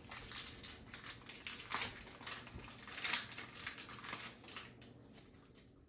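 Foil Pokémon booster pack wrapper crinkling as it is torn open, a run of short crackles that thin out near the end.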